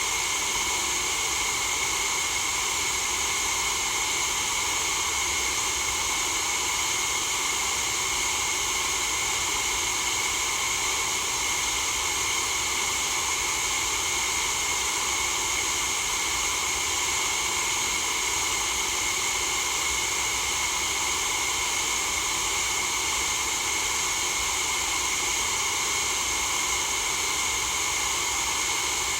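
Steady white noise for sleep, an even, unbroken hiss that leans towards the high end.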